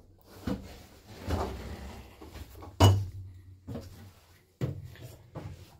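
Several knocks and clunks with rustling between them, as of someone moving about and handling things in a small enclosed cab; the loudest knock comes about three seconds in.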